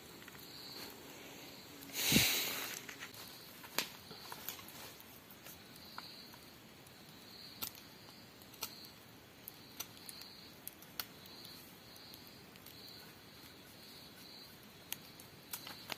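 Sparse crackling of a wood cooking fire, with sharp pops scattered throughout. A loud, brief rush of noise comes about two seconds in, and a faint insect chirps about once a second in the background.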